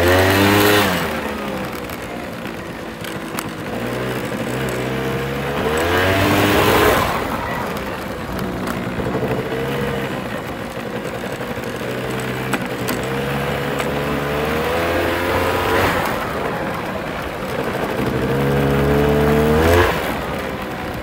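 Pit bike engine being ridden around a dirt track, revving up and easing off several times as it pulls out of turns. The pitch climbs on each pull, loudest near the start, about seven seconds in and again near the end.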